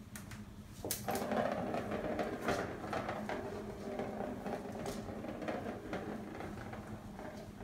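A plastic ball rolling round and round the circular track of a cat scratcher toy, a steady rattling rumble that starts with a sharp knock about a second in and fades near the end, with light clicks from kittens' paws on the tile floor.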